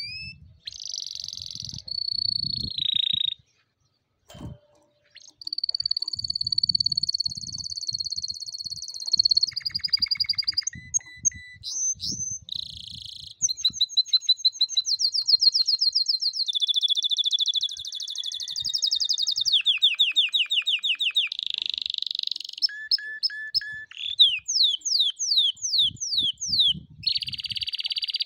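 Domestic canary singing a long, varied song: rapid trills and rolls, held high notes, and runs of fast repeated notes at several speeds. The song breaks off briefly about four seconds in.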